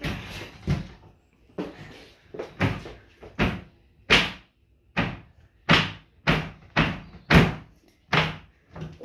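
Kitchen cupboards being smashed: a steady series of hard bangs, about two a second, the later ones louder.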